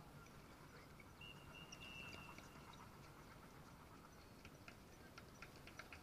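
Near silence: faint outdoor ambience of a distant game, with a thin steady high tone lasting about a second starting about a second in, and a run of faint light ticks in the second half.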